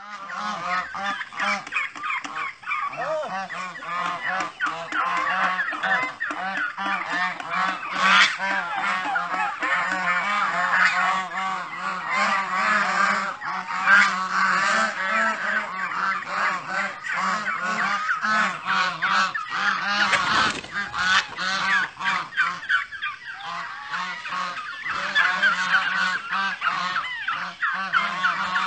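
A large flock of domestic geese honking without a break, many calls overlapping into one continuous din.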